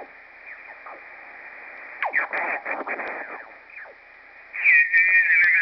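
Icom IC-7300 receiver audio on 20-metre single sideband with the second preamplifier on, being tuned across the band: a low hiss of band noise, then off-tune sideband voices whose pitch slides as the dial moves, and a stronger signal coming in loudly near the end.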